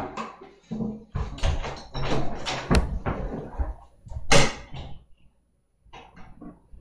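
A person moving about out of sight and handling things: a run of knocks, bumps and rattles for about four seconds, the loudest one about four seconds in, then a few fainter knocks near the end.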